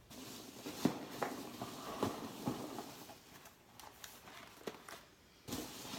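Small cardboard boxes being taken out of a shipping box and set down on a stone countertop: cardboard rustling with a handful of light knocks.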